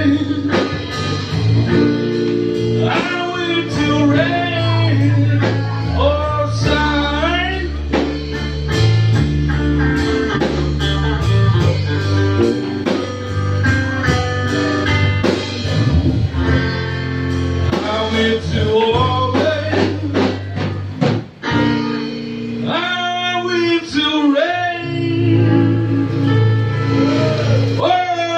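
Live blues band playing: electric guitar and singing over bass and drums, with a brief drop in the music a little after three-quarters of the way through.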